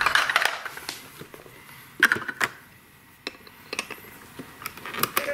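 Hard plastic toy parts knocking and rattling as a VTech Sit-to-Stand Alphabet Train and its wagon of letter blocks are handled, in scattered sharp taps with the loudest about two seconds in.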